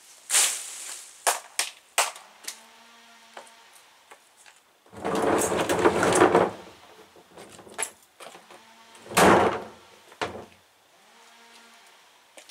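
A freshly cut leafy branch handled and thrown down onto a paved patio: a swish of leaves at the start and a few sharp snaps, then a long loud crash of leaves and twigs hitting the ground, a second shorter crash a few seconds later, and a knock.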